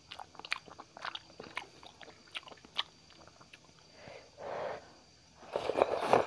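Close-up eating sounds of noodle soup: chewing with many small wet mouth clicks, then two slurps from a spoon, a short one about four seconds in and a longer, louder one near the end.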